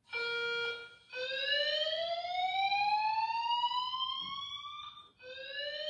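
Fire-alarm sound effect played from a soundboard app through an iPad's speaker: a brief steady buzzy tone, then a slow rising whoop that climbs for about four seconds, breaks off, and starts rising again near the end.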